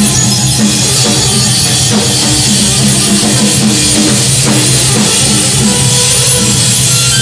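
Loud live noise music: a drum kit, a saxophone and electronics played together in a dense, unbroken mass of sound.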